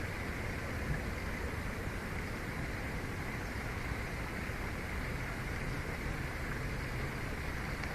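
Steady rushing background noise from an outdoor nest-camera microphone, with no distinct events.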